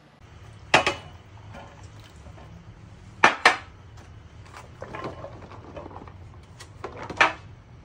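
Kitchenware clattering on a countertop: four sharp knocks and clinks as a metal loaf pan and containers are handled, the loudest two close together a little past three seconds in. A softer rustle comes about five seconds in as sliced mushrooms are tipped into the pan.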